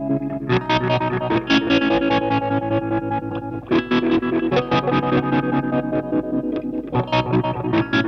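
Intro music: an electric guitar played through a distortion effect, fast picked notes over chords that change about every three seconds.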